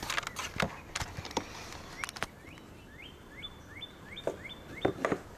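A bird calls a quick run of about six short, rising chirps in the middle, with sharp clicks and taps scattered before and after.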